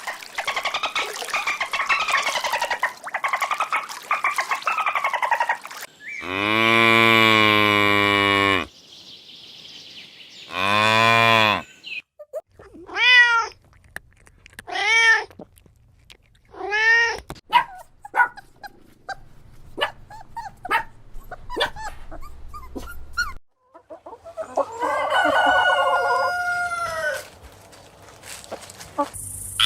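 A series of different farm and pet animal calls played one after another: a wavering call, then two long low calls, three short arching calls about two seconds apart, scattered clicks, and another drawn-out call near the end.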